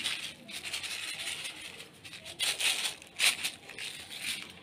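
Sesame seeds shaken out into a steel bowl of murukku flour: a dry, uneven rattle with a few louder bursts.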